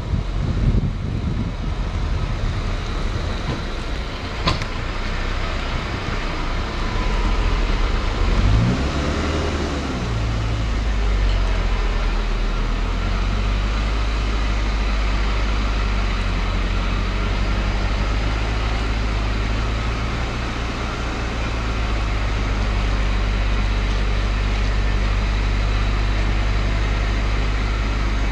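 Steady low drone of a car's engine and tyres, heard from inside the moving car. There is a short click about four and a half seconds in, and the engine pitch rises and falls once between about eight and ten seconds in.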